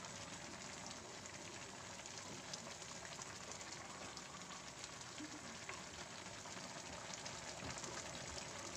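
Pancit noodles frying in an oiled pan on the stove: a faint, steady sizzle and crackle.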